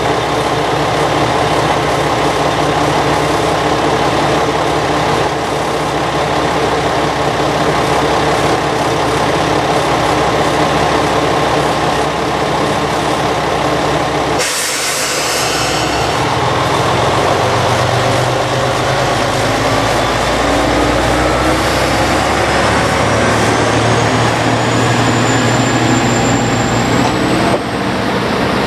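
Diesel railcar engine idling steadily at a station stop. About halfway through comes a short, sharp hiss of released air, typical of air brakes, and then a whine that climbs steadily in pitch over the rest of the clip.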